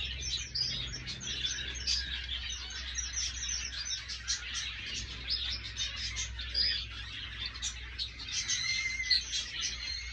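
A flock of small aviary finches chirping busily: many short, high calls overlapping without a break, with a low steady rumble underneath.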